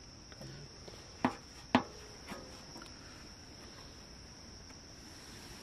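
Crickets chirring steadily in the background, with two sharp knocks about half a second apart as the big metal lid of the cooking pot is handled and lifted off.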